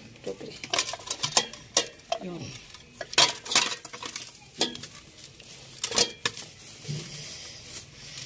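Metal hand-press citrus squeezer clicking and clanking against a steel basin as orange halves are loaded and pressed: a string of irregular sharp metallic knocks.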